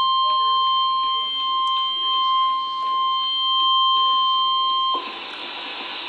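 Emergency alert warning tone, the National Weather Service's single steady 1050 Hz alarm tone, sounding through a broadcast. It cuts off abruptly about five seconds in, leaving a steady hiss.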